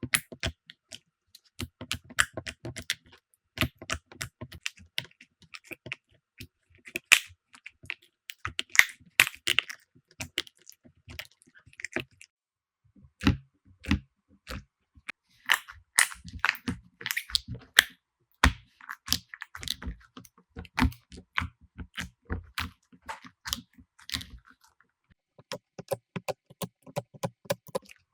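Slime being pressed and poked by hand, giving a dense run of irregular sticky clicks, crackles and small pops.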